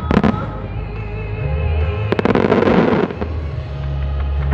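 Fireworks going off over music: a couple of sharp bangs at the start, then a quick, dense run of many pops and crackles lasting about a second, from about two seconds in.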